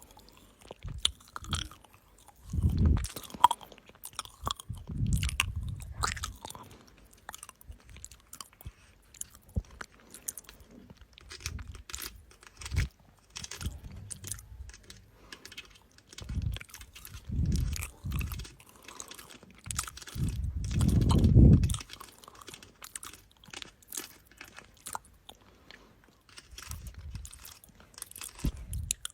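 Close-miked ASMR trigger sounds: irregular crisp clicks and crackles, with a few louder low thumps, the loudest about two-thirds of the way through.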